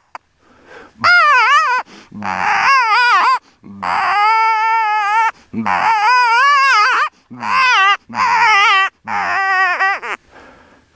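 Predator call sounding a distress cry to lure coyotes: a run of about seven loud, wavering, wailing cries, each up to a second and a half long with short breaks between them.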